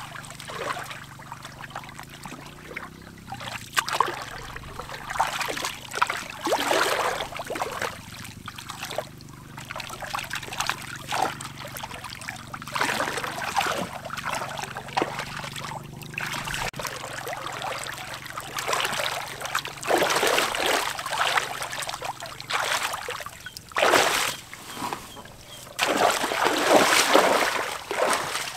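Muddy shallow water sloshing and splashing irregularly as hands grope through it for fish. Near the end come heavier splashes as feet wade through the water.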